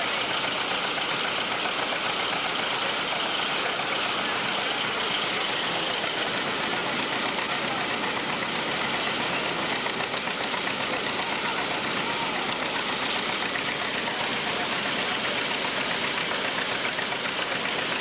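Engine-driven rice threshing machine running steadily while rice bundles are fed into it, a dense, even mechanical noise.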